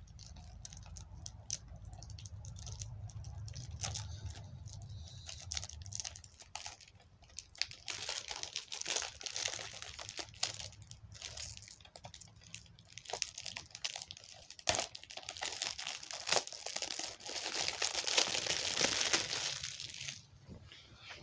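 Cellophane shrink wrap being torn and peeled off a plastic DVD case: a continuous crinkling and crackling of thin plastic that grows louder and busier about a third of the way in.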